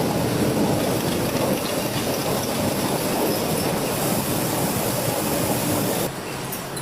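Steady clattering and rumbling of factory processing machinery, dropping abruptly to a quieter machine noise about six seconds in.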